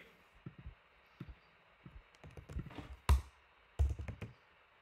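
Computer keyboard typing: scattered keystrokes at an uneven pace, with a louder key press about three seconds in and a quick run of keys near four seconds.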